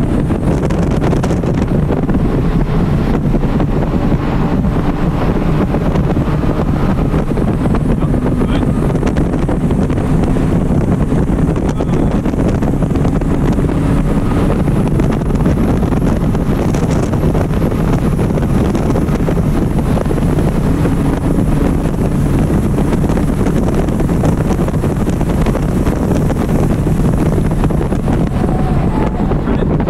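A 2012 Porsche Cayman R's flat-six engine running hard at high revs at track speed, heard from inside the cabin, with steady wind and road noise over it.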